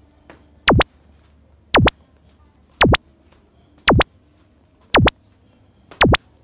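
Synthetic sound effect laid into an edit: six identical quick pitch sweeps about a second apart, each diving from very high to very low and straight back up.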